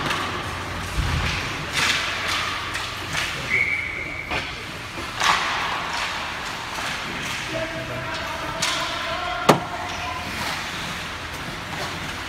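Ice hockey play: skates scraping on the ice and sticks and puck clacking, with a sharp loud crack about nine and a half seconds in, over spectators' voices echoing in the rink.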